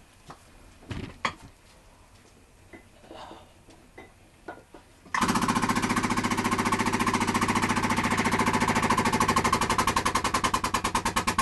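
A few light knocks and taps, then about five seconds in a hydraulic press's pump starts suddenly and runs loud with a rapid, even pulsing. It is driving the ram down on a white-hot Damascus billet to forge-weld its layers together.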